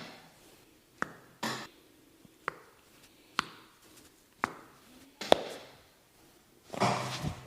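A series of sharp single taps, roughly a second apart, with a brief rasp after the first. Near the end comes a longer rustling scrape.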